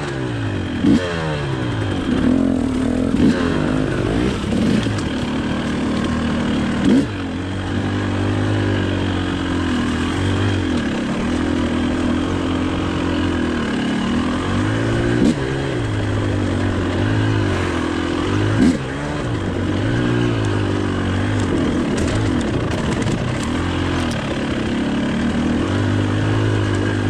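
2019 Husqvarna TE 300i two-stroke enduro motorcycle engine under way, revving up and down over and over as the throttle is worked, with a few sharp knocks from the bike.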